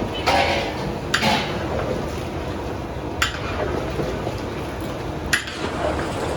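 Metal utensils clanking against a metal pan, four sharp clinks spread over a few seconds, over a steady rushing background noise.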